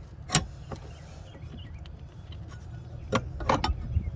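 Metal fuel pump bracket clicking and knocking against engine parts as it is wiggled out of a tight spot, with a sharp click a third of a second in and a quick cluster of clicks near the end.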